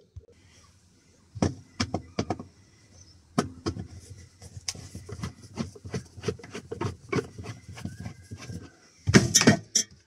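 Hand screwdriver working the screws out of a plastic switch panel: a run of irregular sharp clicks, with a louder burst of handling noise near the end.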